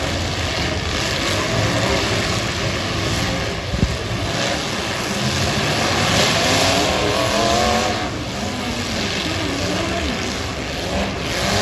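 V8 demolition derby cars running and revving together, their engine pitch rising and falling. A single sharp bang comes just under four seconds in.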